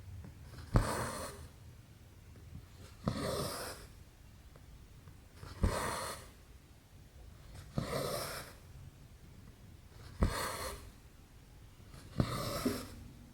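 Cross-stitching on 11-count canvas: six times, evenly spaced, a needle pops through the fabric with a sharp click and the thread is drawn through after it with a short rasp.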